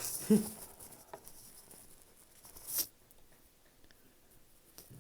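Small parts of an HO-scale model locomotive being handled during reassembly: faint clicks and a brief rustling scrape near three seconds in, with a short vocal sound from the person just after the start.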